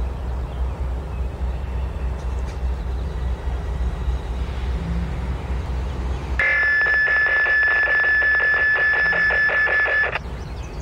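Norfolk Southern diesel locomotive rumbling low as it pulls out. About six seconds in, its bell starts ringing rapidly and steadily for about four seconds, then stops abruptly.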